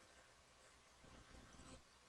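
Near silence: room tone, with a few faint soft sounds about a second in.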